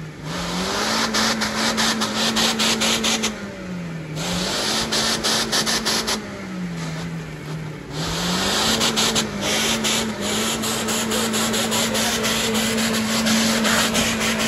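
Off-road 4x4's engine held at high, steady revs, its pitch dropping near the start, around four seconds in and for longer a little after, under a loud hiss and crackle.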